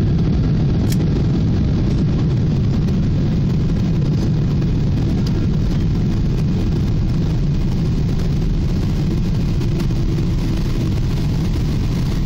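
Steady low rumble of cabin noise inside an Airbus A380 as it lands, with one faint click about a second in.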